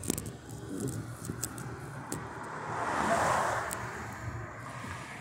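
A car passing close by on the street, its tyre and engine noise swelling to a peak about three seconds in and then fading, with a few sharp clicks along the way.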